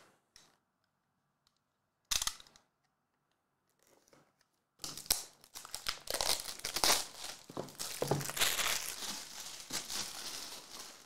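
Clear plastic shrink wrap being torn and crinkled off a small cardboard trading-card box: a short rip about two seconds in, then steady crackling and crumpling from about five seconds in.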